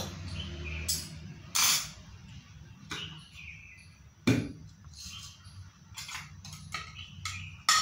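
A steel spoon scooping sugar from a steel canister into a blender jar: a short rustle of sugar about one and a half seconds in, a solid knock a little after four seconds as the canister is set down on the table, then a run of small clicks and clinks.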